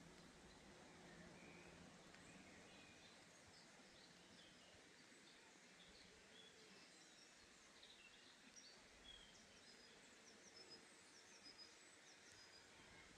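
Faint birds chirping: many short, scattered calls over a steady low hiss.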